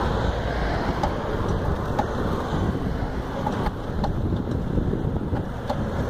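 Wind buffeting the microphone while riding along on a pedal cart, a steady rumble, with road traffic passing alongside.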